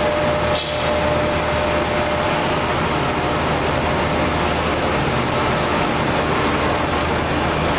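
YSTADT KMD 3150X4 CNC hydraulic bending/folding machine running, with a steady low hum from its hydraulic power unit. A thin whine carries through the first few seconds and then fades.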